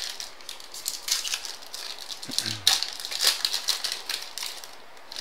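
Baseball trading cards being flipped through by hand: a run of quick, papery slides and flicks, with a short murmur from a voice about halfway through.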